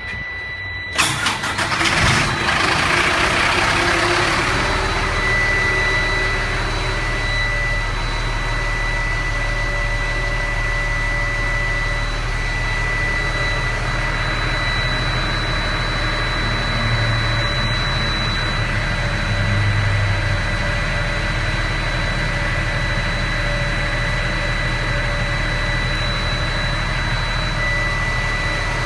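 Fuel truck's engine cranking and catching about a second in, then idling steadily, with a steady high-pitched tone alongside.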